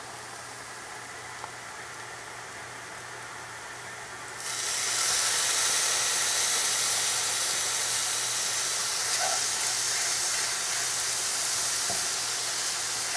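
Chopped cilantro sizzling as it fries in oil in a nonstick pan. The steady hiss jumps suddenly louder and brighter about four and a half seconds in.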